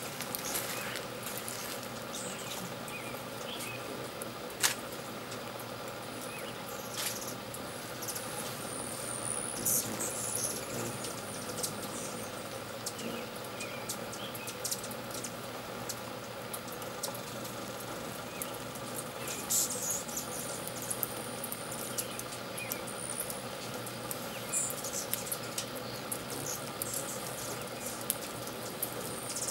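Hummingbirds giving short, high, thin squeaky chirps several times over a steady background hum, with a few sharp clicks.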